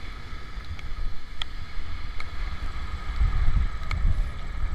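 Riding noise from a Honda Supra GTR 150 motorcycle under way: a deep, steady wind rumble on the microphone over the running engine, with a few sharp ticks.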